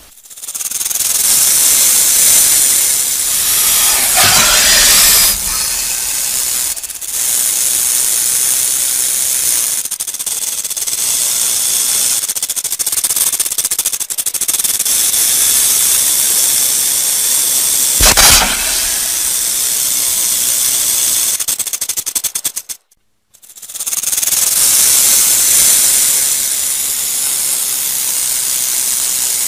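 Rattlesnake rattling its tail: a loud, steady high buzzing hiss. It breaks off for under a second about three quarters of the way through, then starts again. A dull thump sounds about four seconds in and another a little past halfway.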